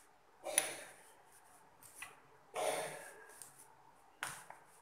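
Dough being pressed and rolled out with a rolling pin on a floured worktop: three soft rubbing scuffs, each about a second long, roughly two seconds apart.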